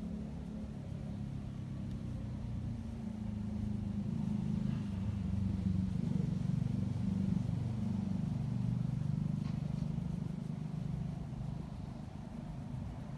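Norwegian Forest Cat purring close up as its head is stroked. The purr is steady and low, loudest in the middle and easing off slightly toward the end.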